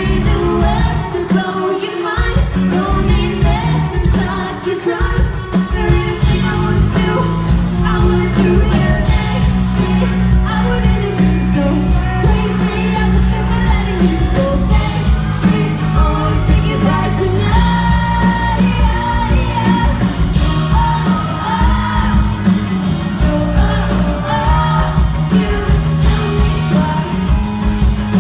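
Live pop-rock band playing with a lead singer, recorded from among the audience. The bass and drums thin out briefly near the start, then the full band comes back in.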